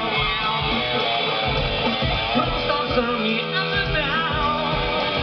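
Rock band playing live, with electric guitar to the fore over bass and drums, heard from the audience.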